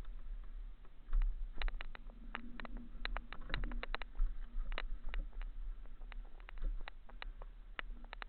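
Mountain bike rolling over a rocky trail: irregular sharp clicks and rattles, thickest in the middle, over a steady low rumble on the camera's microphone.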